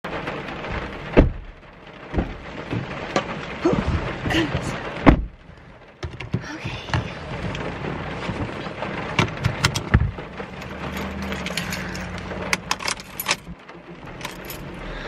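Handling noises inside a parked car: several heavy thumps, like a car door shutting, amid many small clicks and keys jangling. Near the end a seatbelt is pulled across and fastened.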